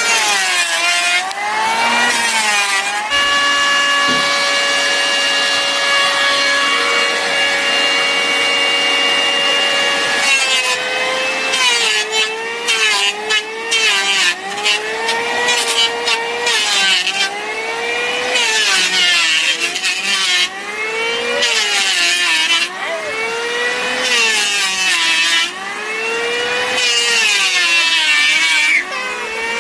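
Electric hand planer shaving a log beam in repeated passes. Its motor whine dips in pitch as the blades bite into the wood and rises again as they free, over and over. For several seconds after the start it holds a steady pitch.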